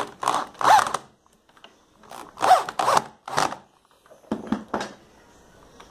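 Electric drill boring into a small wooden block, run in a series of short trigger bursts, the motor spinning up and down with each one.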